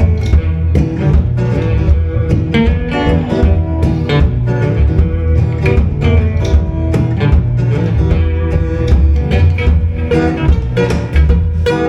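Live band playing an instrumental passage: guitar over a strong bass line, with plucked-string attacks throughout.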